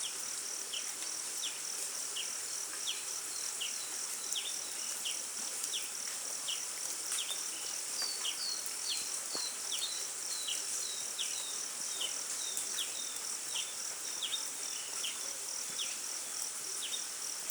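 Steady chorus of insects, with a cricket-like pulsing trill and a high hiss. Over it comes a long run of short, high chirps, each dropping in pitch, about two a second.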